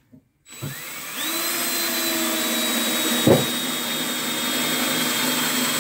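DeWalt cordless drill driving a long screw into a 2x4. The motor spins up about half a second in, rising to a steady whine, with a single knock a little past halfway.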